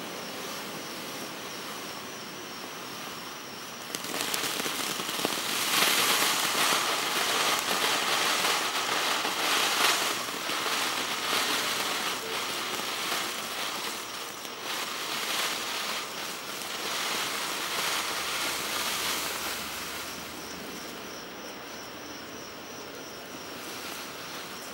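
Black Cat Tie-Dye Fountain, a ground fountain firework, spraying sparks with a rushing hiss full of crackles. It surges about four seconds in, is loudest for several seconds, then dies down gradually. Crickets chirp steadily before it picks up and after it fades.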